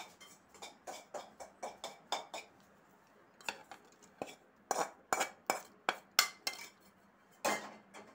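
A spoon clinking and scraping against a stainless-steel bowl and mixer-grinder jar as sautéed small onions and garlic are pushed into the jar: a quick run of short metal clinks, a pause of about a second, then another run.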